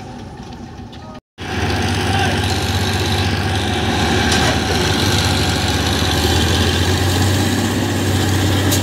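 Heavy farm diesel engines running steadily with a deep, even hum. The sound cuts out completely for a moment about a second in, then comes back louder and stays steady.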